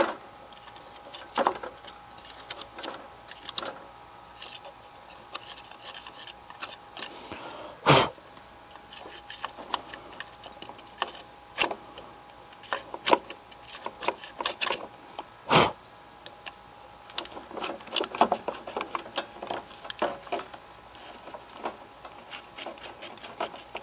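Metal pick scraping and ticking against the throttle lever and control plate of a zero-turn mower, picking out packed dirt and grit that bind the throttle lever. Many small clicks and scrapes, with two louder sharp knocks, about 8 and 15 seconds in.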